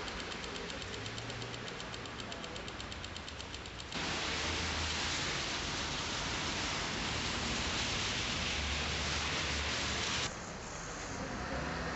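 Steady outdoor street noise, a hissing wash with traffic in it. A fast, even ticking runs through the first four seconds. The sound jumps abruptly louder and brighter about four seconds in and drops back near the end.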